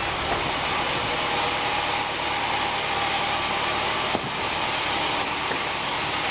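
Sawmill band saw machinery running steadily without cutting, an even mechanical noise, with a single knock about four seconds in.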